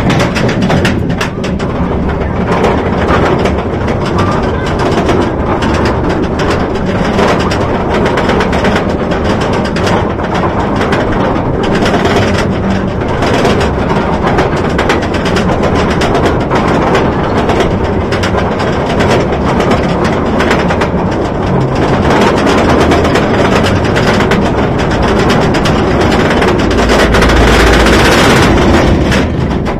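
Yukon Striker coaster train hauled up its steep chain lift hill: a loud, steady clattering of the lift chain and rapid clicking of the anti-rollback, growing louder near the end as the train nears the crest.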